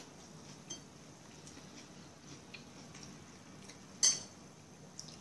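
Faint clicks of cutlery and dishes, with one sharper, louder clink about four seconds in.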